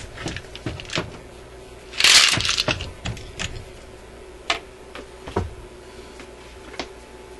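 Hands handling a record player's tonearm: scattered light clicks and knocks, with a louder scraping rustle about two seconds in, over a faint steady hum.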